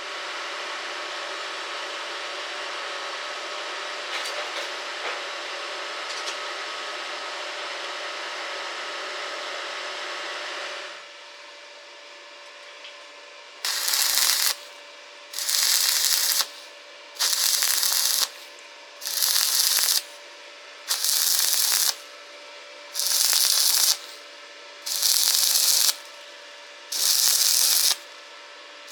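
Electric welding arc, a steady crackling hiss for about eleven seconds that stops abruptly. Then a series of short arc bursts of about a second each, roughly one every two seconds, as in stitch or tack welding.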